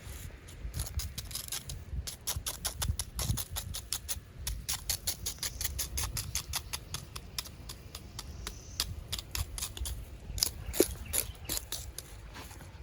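Rapid, irregular clicking and scraping, many sharp clicks a second, with a louder cluster near the end.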